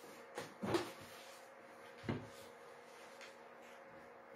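A few short knocks and thumps of things being handled on a worktop: two close together about half a second in, another about two seconds in.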